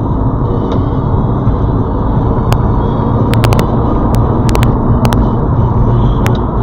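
Steady road and engine noise inside a moving car as it overtakes a truck on the highway, with several sharp, irregular clicks in the second half.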